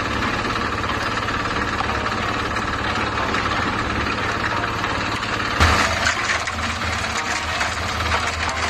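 Portable concrete mixer's engine running steadily, with a louder clatter a little past halfway.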